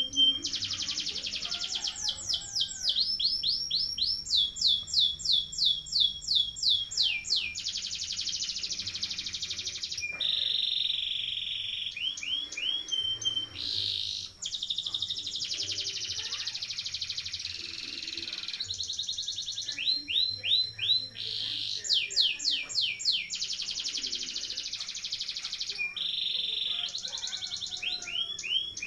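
Domestic canary singing a long, unbroken rolling song (ngerol). Dense, fast rolls alternate with series of separately repeated high notes, the bird switching from one phrase to the next without pause.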